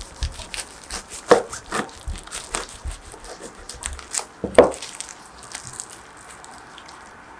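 Knife cutting through a paper-wrapped tortilla wrap on a wooden cutting board: irregular paper crinkling and crunching with a few sharper cuts, the loudest about four and a half seconds in, then quieter handling near the end.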